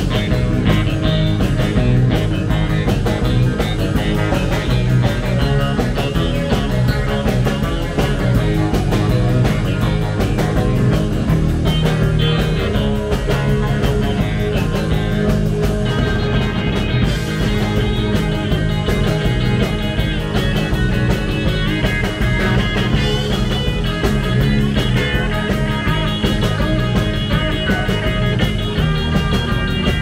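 Live rock-and-roll band playing: guitar over bass and drums, with a steady beat.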